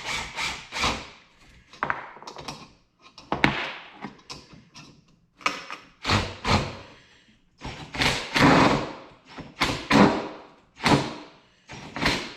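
Wrenches clanking against a dirt-bike fork's top cap and nut as the cap is tightened back on: a string of sharp metallic knocks and taps, one every half second to a second.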